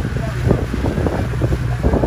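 A motor running steadily with a low drone, under wind buffeting the microphone, with irregular short knocks.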